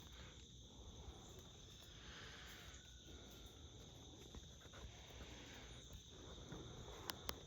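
Faint, steady background chorus of insects such as crickets, with two sharp clicks near the end.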